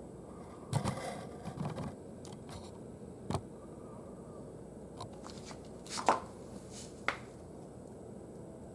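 Scattered light knocks, clicks and scrapes of handling, a cluster about a second in, another in the middle, and the loudest about six seconds in, over a low steady background.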